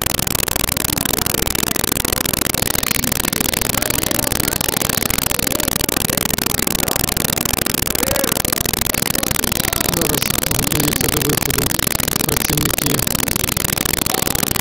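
Loud, steady hiss of a poor-quality recording that covers everything. Faint voices of a crowd come through it from about ten seconds in.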